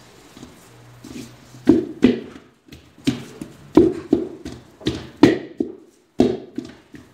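Wooden spoon beating and stirring a thick paste of mashed ajwa dates and ghee in a stainless steel bowl, giving dull knocks against the bowl, mostly in pairs about once a second, from about a second and a half in. The dates are being worked so that they break apart and mix into the ghee.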